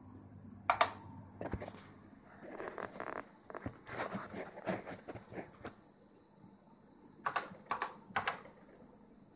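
Typing on a BBC Micro's keyboard: a run of quick, irregular key clicks, with a few louder clacks near the end.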